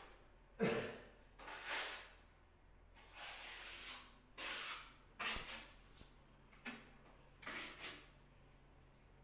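Irregular rasping scrapes from hand work at a tiled wall: about eight short strokes, each under a second, some with a sharp start.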